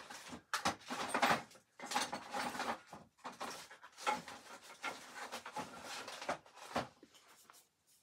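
Someone rummaging through stored items in search of spare wheel packs: a run of irregular clattering, rubbing and knocking as things are moved about.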